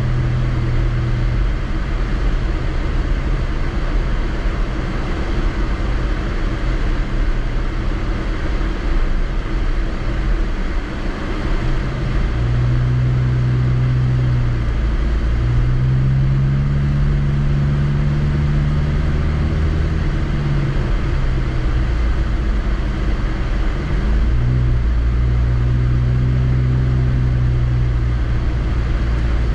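Car engine and road noise heard from inside the cabin while driving on a snow-covered road. A steady low rumble and hiss run throughout, and the engine's hum rises and falls in pitch as the car speeds up and eases off, about twelve seconds in and again near the end.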